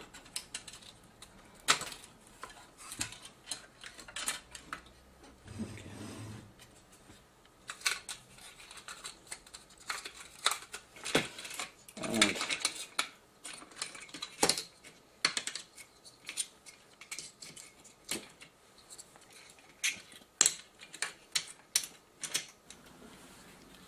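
Small irregular clicks, taps and light clatter of plastic and metal parts being handled: ribbon cables and plugs pulled from their sockets and the camcorder's connector panel worked loose from its metal chassis.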